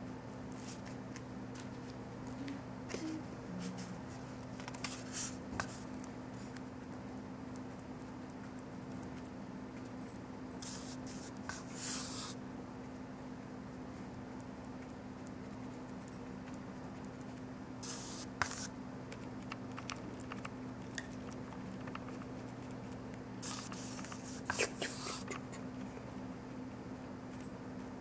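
Bristle paintbrush dabbing and scrubbing thick white paint onto paper, in short scratchy bursts every few seconds, over a steady low hum.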